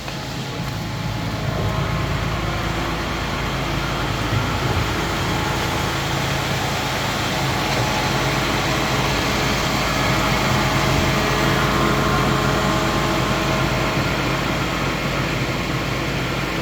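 A heavy engine running steadily, swelling over the first couple of seconds and then holding an even hum.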